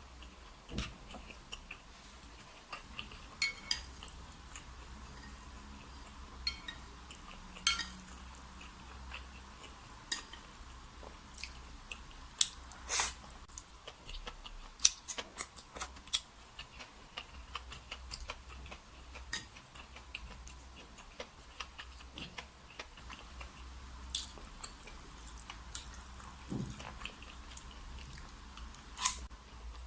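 Chopsticks clicking and tapping against a bowl and plate while eating, with mouth and chewing sounds: irregular short clicks, a few of them louder.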